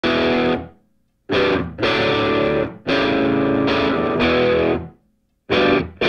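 Music: distorted electric guitar chords played in short blocks, each cut off abruptly, with brief silences between them.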